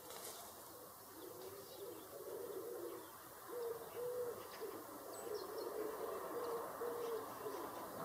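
A dove cooing: a run of short, low coos on a steady pitch, one after another, getting louder about three and a half seconds in. A few faint high chirps come about five seconds in.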